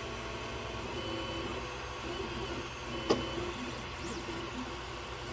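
Bowden-tube 3D printer's stepper motors whining in short stepped tones as the print is resumed, with one sharp click about three seconds in. Filament is not yet coming out of the nozzle.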